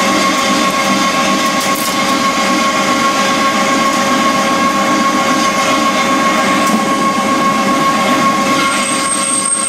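Copier 16 CB pipe severing and beveling machine cutting through a metal pipe under coolant: a loud, steady metallic ringing squeal from the cut over a continuous hiss. A higher thin whine joins near the end.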